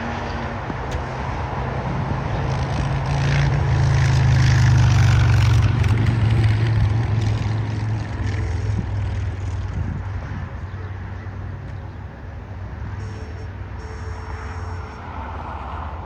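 Jet airliner engines rumbling as the plane passes on the runway, growing louder to a peak about five seconds in, then slowly fading.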